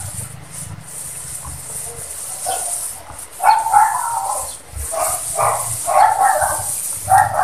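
A dog barking several times, from about three and a half seconds in, over a steady high hiss.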